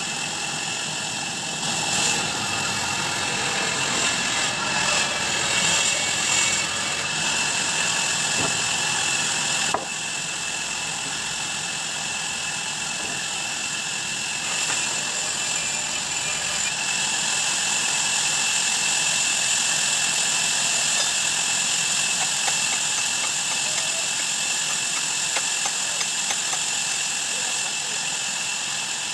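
Sawmill band saw running: a steady mechanical drone with a high whine, with a sharp click about ten seconds in after which it drops slightly.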